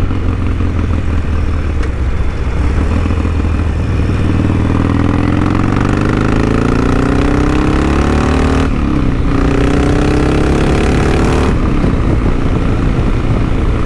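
Harley-Davidson Sportster XL1200's air-cooled 1200 cc V-twin accelerating hard onto the freeway, its pitch climbing through the gears. The sound dips briefly at two upshifts, about nine seconds in and again about two and a half seconds later, then settles into steady running.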